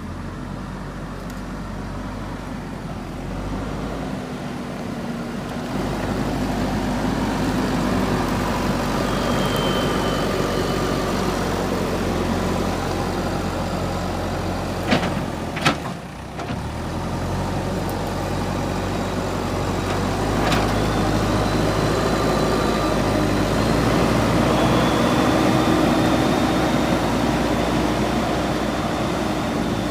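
JCB 3DX backhoe loader's diesel engine running and working under changing load, with a faint high whine at times. There are two sharp knocks about halfway through and another a few seconds later.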